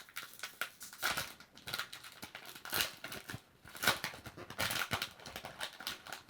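Trading card booster pack and cards being handled: the foil wrapper crinkling and tearing, with irregular short rustles and clicks.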